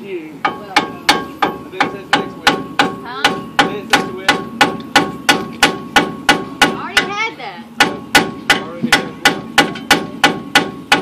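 A hammer striking metal again and again, about three blows a second with a short break about seven and a half seconds in, each blow leaving a faint ring. It is a seized wheel bearing on a pickup truck's front hub being hammered to knock it loose after heating with a torch.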